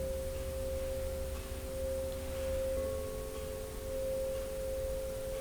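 Ambient meditation music of soft, pure held tones, like a tuning-fork drone: one high note sustained over lower notes, with one of the lower notes shifting up about three seconds in, swelling gently in loudness.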